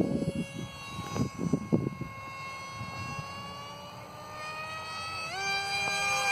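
The RAD JET 800 RC plane in flight, its stock electric motor and propeller whining steadily on a 4S battery. The pitch drifts slowly, then rises sharply about five seconds in. In the first two seconds wind buffets the microphone.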